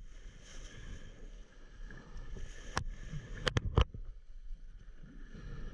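Water rushing along the hulls of a Hobie Cat 16 catamaran under sail, with wind on the microphone. About three seconds in come a few sharp knocks: one, then three in quick succession.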